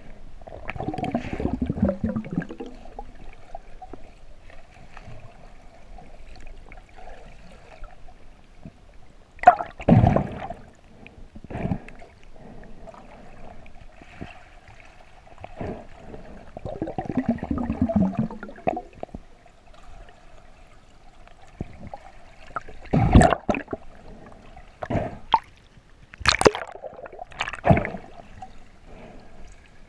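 Muffled underwater sound through a waterproof camera housing: water gurgling and swishing in two longer swells, with several sharp knocks against the housing, over a faint steady hum.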